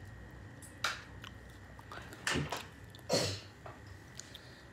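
Three or four short, sharp rustling knocks close to the microphone, spaced about a second apart, over a faint steady high whine.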